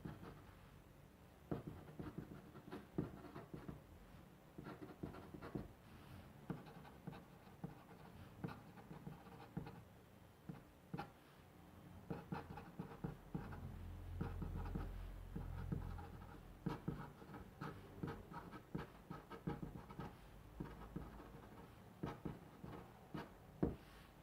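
A pen scratching across paper in irregular short strokes while writing by hand, with a brief low rumble about halfway through.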